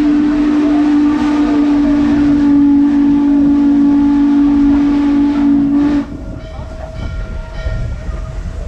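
Norfolk & Western 611's steam whistle sounding one long, steady blast that cuts off about six seconds in, heard from an open-sided coach. After that the train's running rumble carries on.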